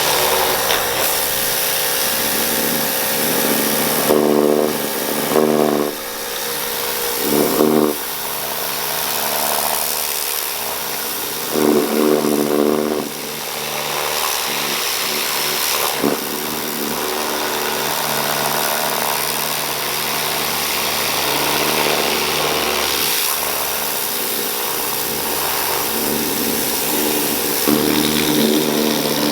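Pressure washer running steadily with the hiss of its spray, its pitched drone swelling several times as it works.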